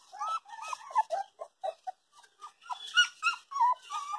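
Young puppies whimpering and squealing in a quick run of short, high calls, several a second, each bending in pitch.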